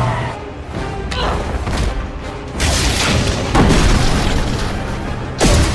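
Dramatic trailer music with three heavy booming hits, the loudest a little past the middle and near the end, and falling sweeps leading into them.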